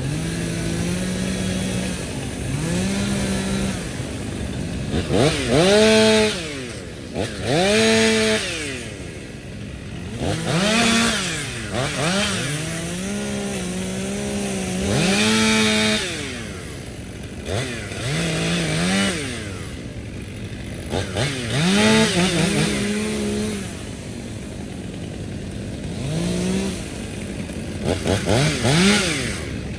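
Two-stroke chainsaw running at full throttle and revving up and down repeatedly, its pitch rising and falling over and over while felling trees.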